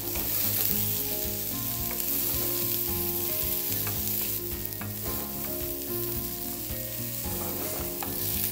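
Finely diced zucchini, carrot, leek and eggplant sizzling as they sauté in olive oil in a hot frying pan, stirred with a spoon that now and then taps and scrapes against the pan.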